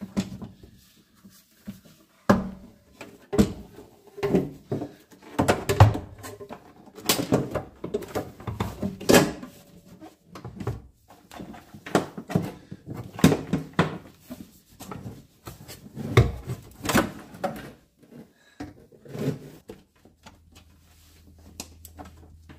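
Irregular knocks, clicks and clatter of hand work on the vehicle with tools and small parts, such as pressing plugs into holes in the panel; the strikes come at uneven intervals and thin out after about eighteen seconds. A faint low hum starts near the end.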